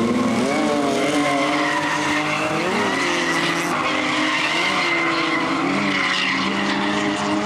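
Race car engines running at high revs with tyres squealing, the engine pitch wavering up and down.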